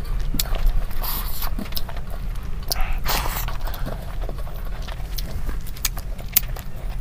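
Close-up mouth sounds of eating super spicy instant noodles by hand: wet chewing and lip clicks, with two sharp breaths about a second in and again about three seconds in, as from the heat of the chilli. A steady low hum runs underneath.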